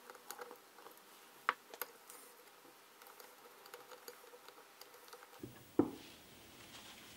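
Screwdriver turning small screws in the round plate of a Myford ML7 lathe apron: faint metal clicks and scrapes, with two sharper clicks about a second and a half in and a dull knock near the end.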